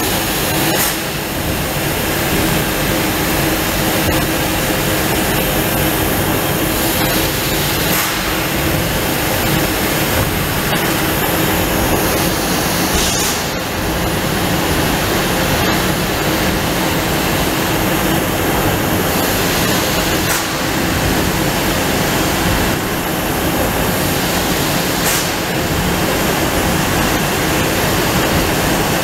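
Trumpf L2530 4 kW CNC laser cutter cutting metal sheet: a steady, loud hiss from the cutting head with a steady machine hum underneath.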